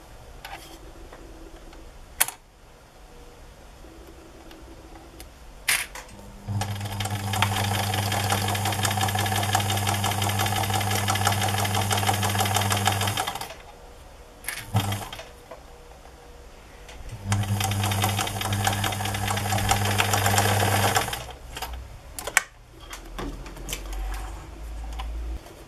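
Electric sewing machine stitching a seam in two runs, one of about six seconds and one of about four seconds, each a steady motor hum with fast, even needle clatter. There are a few sharp clicks before the first run and light handling knocks between the runs.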